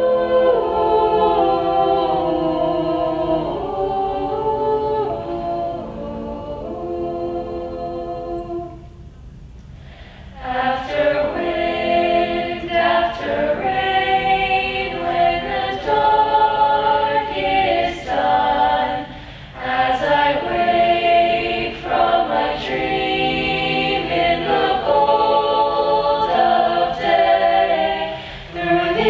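Mixed school choir singing in harmony: long held chords that die away to a hush about nine seconds in, then the voices come back in a faster, more rhythmic passage with crisp consonants.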